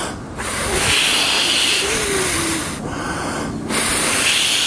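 Two long blows of breath across the metal flange on the outer lip of a Winnebago Lesharo's opening side window, each a breathy hiss with a high-pitched buzz. The buzz is air catching and resonating the flange, the source of the van's wind noise at highway speed.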